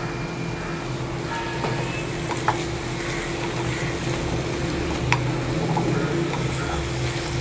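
Cut radish pieces sizzling in hot oil and masala in a frying pan while a wooden spatula stirs them, with a couple of light knocks of the spatula against the pan. A steady low hum runs underneath.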